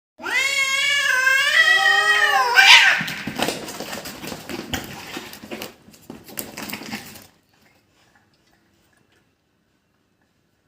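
Cats fighting: a long, wavering cat yowl (caterwaul) for about two and a half seconds, then a sudden loud, harsh outburst and rough scuffling noise that fades and stops about seven seconds in.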